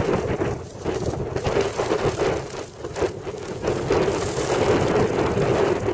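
Wind buffeting the microphone, rising and falling in gusts, over the running noise of a Flexity tram moving along the street track and passing road traffic.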